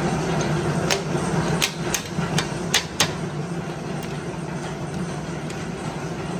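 Sharp metal clinks of a small spanner working the bolts on a steel drum's hatch, several in quick succession from about one to three seconds in and one more near four seconds. A steady low machine hum runs underneath.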